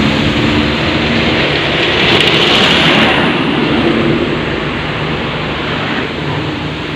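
Road traffic: a passing motor vehicle's engine and tyre noise, swelling about two to three seconds in and then fading.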